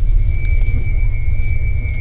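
A steady low rumble, with a thin high whine joining about half a second in.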